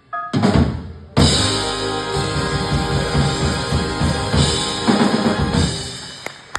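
Live jazz band playing the song's closing bars: a loud held ensemble chord with busy drum fills beneath it, a last hit about five seconds in, then dying away near the end.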